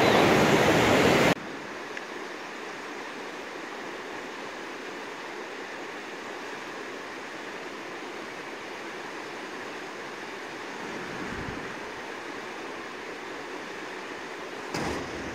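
A steady rush of a fast mountain river running over rocks. It follows a louder first second that cuts off abruptly.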